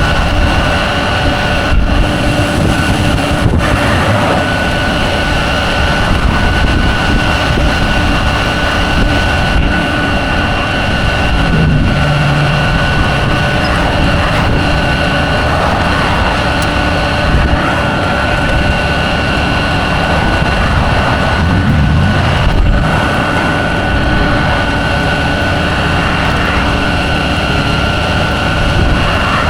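Tow truck driving on the road: a steady mix of engine and road noise, with a constant high whine running through it.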